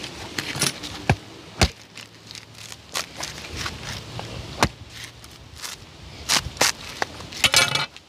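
A series of irregular sharp knocks and cracks, with a quick rattling cluster near the end.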